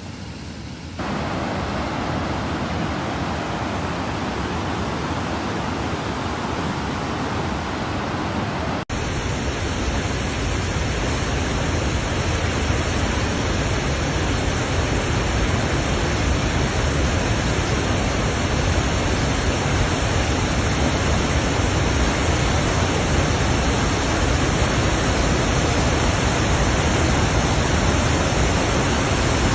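Steady rushing of heavy water, as from floodwater or a dam's spillway, changing abruptly about a second in and again about nine seconds in.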